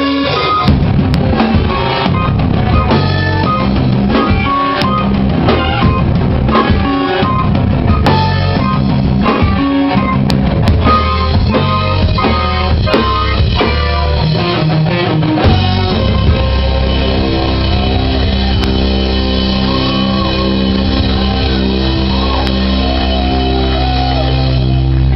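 A live rock band with drum kit, electric guitar and bass playing a busy, rhythmic passage of hard hits. About fifteen seconds in this gives way to long held chords over a steady low bass note.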